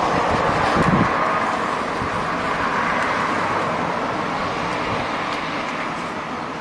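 Nakatomi MAC-20 portable air conditioner running, its fan blowing a steady airy rush that slowly grows a little quieter, with a brief low thump about a second in.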